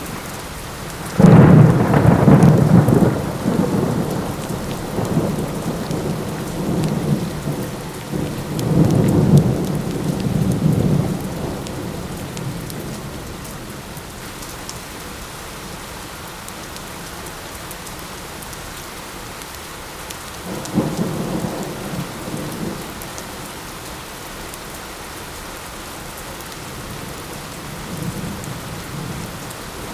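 Steady light rain with rolling thunder: a sharp crack about a second in that rumbles on for about ten seconds, swelling again partway through, then a shorter, fainter rumble about twenty seconds in, and a new clap starting at the very end.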